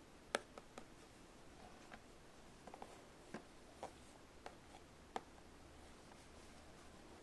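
Light, scattered clicks and taps of small plastic toy pieces being handled, about ten in all over a quiet room. The sharpest comes just after the start and another about five seconds in.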